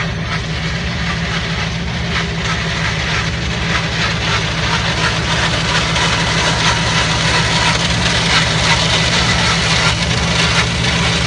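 The Toyota FJ Cruiser's swapped-in V8 engine, a GM LS3, running steadily at an even, unchanging pitch, with a steady rushing noise over it.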